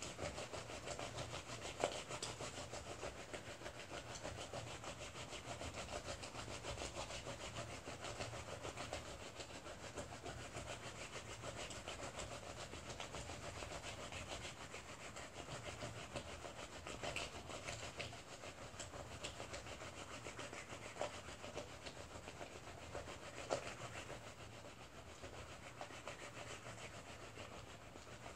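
Wool-wrapped bar of soap rubbed rapidly back and forth on a wet, ridged tray: a steady soapy scrubbing with a few sharper taps. This is the wet-felting stage where rubbing in one direction shrinks the wool onto the soap.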